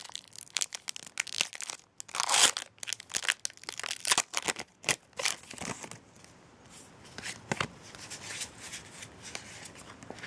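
Foil wrapper of a Pokémon trading card booster pack being torn open and crinkled: a run of crackling and tearing, loudest about two and a half seconds in. After about six seconds it turns to softer clicks and rustles as the cards are slid out and handled.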